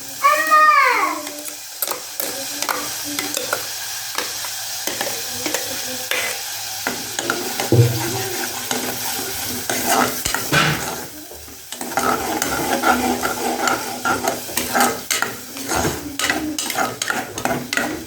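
Food sizzling in a hot pan while a metal spoon stirs and scrapes against it, with repeated clatters and taps of the utensil. A short rising-and-falling squeal comes about half a second in.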